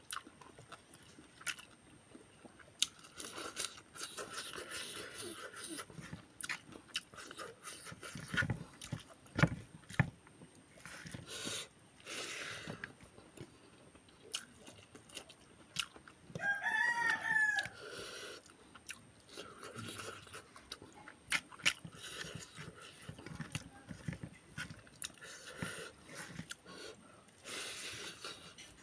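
Close-miked eating: irregular crunching and chewing with sharp bites and mouth clicks. About two-thirds of the way through, a single short pitched call that rises and falls sounds in the background.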